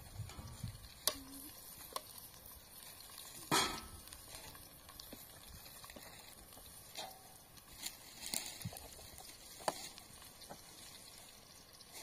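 Occasional knocks and clinks over a faint steady hiss, the loudest about three and a half seconds in.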